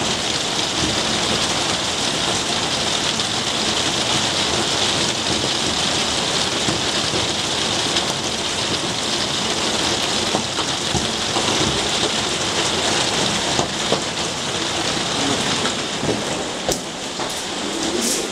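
Steady rain falling on garden foliage, plant pots and a wet paved path, with scattered sharper drops; it softens a little near the end.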